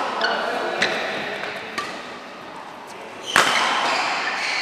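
Badminton rackets striking a shuttlecock during a doubles rally: sharp cracks about a second apart, the loudest about three and a half seconds in, echoing in a large hall.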